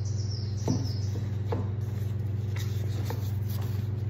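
Steady low hum of the room, with a few faint ticks scattered through it.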